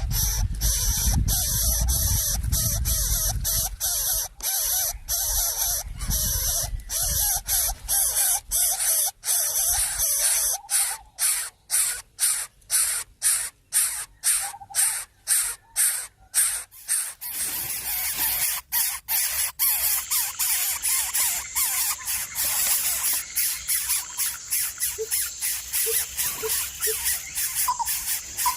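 Nestling birds' hissing begging calls, repeated in short bursts about once or twice a second, turning faster and denser about two-thirds of the way through.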